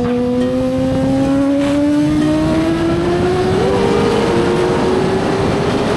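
Sport motorcycle engine running hard, its pitch climbing slowly and steadily as the bike accelerates, over a heavy rush of wind noise.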